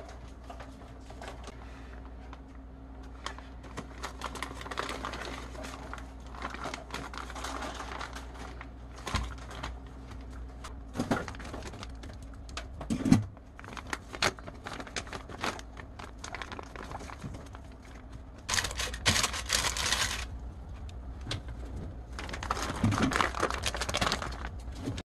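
Kitchen food-preparation sounds: scattered clicks and knocks with crinkling, and two spells of steady hiss near the end.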